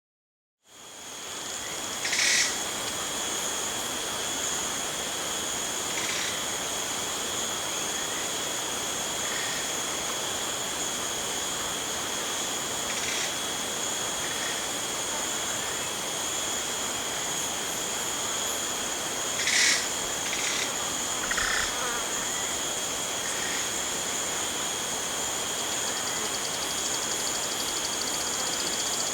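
Jungle ambience: a steady high-pitched insect trill such as crickets make, fading in under a second in, with short animal calls breaking in every few seconds, the loudest about two seconds in and again near twenty seconds.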